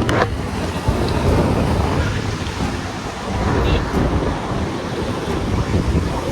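Wind blowing on the microphone over the steady wash of sea surf on a beach.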